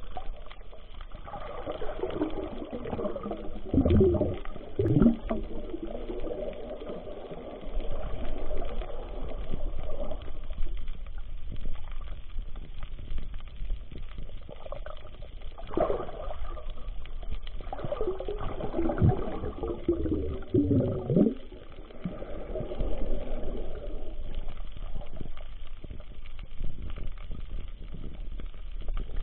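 Underwater water noise with a low rumble, broken by bubbling gurgles a few seconds in, about halfway through and twice more shortly after.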